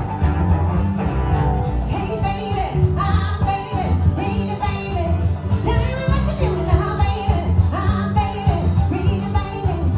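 Live string band playing a country-rock groove: upright bass, strummed mandolin, acoustic guitar and cello, with a woman singing lead from about two seconds in.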